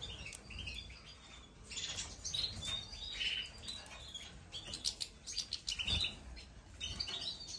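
Small cage finches chirping and twittering in quick, irregular runs of short high notes.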